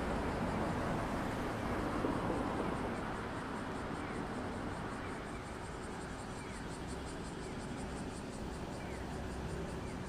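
Street noise heard from a moving bicycle: a steady rush of traffic and wind that eases after about three seconds. In the second half there is a fast, light ticking.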